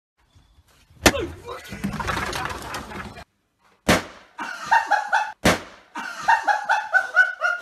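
Three loud, sharp bangs, the first about a second in with a clattering stretch after it, the others near four and five and a half seconds; between and after the bangs a man yells in fright in rising and falling cries.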